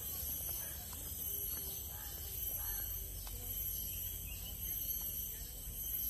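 Steady high-pitched drone of insects, several even tones held without a break, with faint voices in the background.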